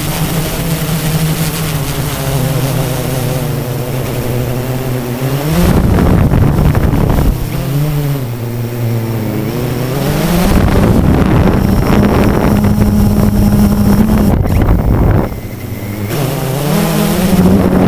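Blade 350 QX quadcopter's four brushless motors and propellers buzzing, heard from the onboard camera. The pitch drops and climbs again several times as the throttle changes. Short rushes of wind on the microphone come about six seconds in and near the end.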